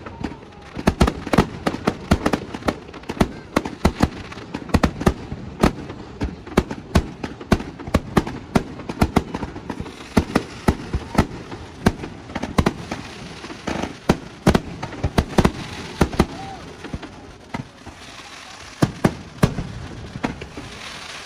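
Aerial fireworks display: shells and comets going off in a rapid, irregular string of bangs, several a second. A crackling hiss joins in under the bangs about halfway through.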